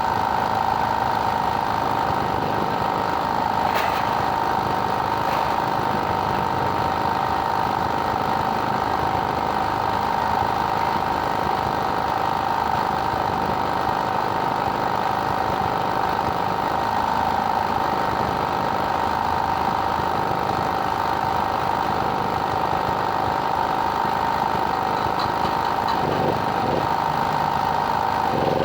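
Steady machine noise: a constant high hum over an even hiss, unchanging throughout.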